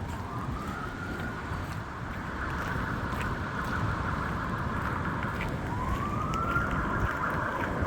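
Emergency vehicle siren wailing, its pitch slowly rising and falling in long cycles, with a steady low rumble of storm wind on the microphone.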